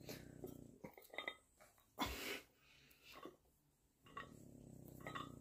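Faint sounds of a dumbbell lift: a few light metallic clinks from the dumbbell's iron plates, and a brief breathy hiss about two seconds in.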